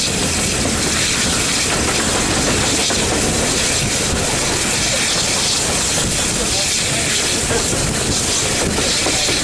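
Steam train on the move, heard from a carriage window: a steady rush of wind and running noise from the wheels on the rails, with the BR Standard Class 4MT 2-6-0 locomotive 76084 working ahead.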